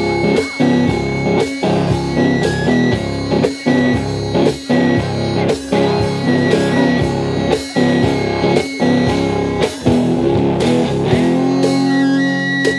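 Live guitar music played in a steady rhythm, with a regular beat about once a second. Near the end the rhythm gives way to a held low drone with shifting high tones over it.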